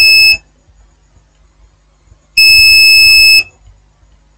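Two high-pitched electronic beeps from a bench multimeter's beeper while test probes touch the phone's charging port. The first is short, at the very start, and the second lasts about a second, a little past the middle.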